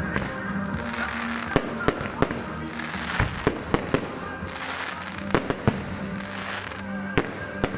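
Aerial fireworks bursting overhead: an irregular series of about ten sharp bangs, with crackle and hiss between them, over background music and voices.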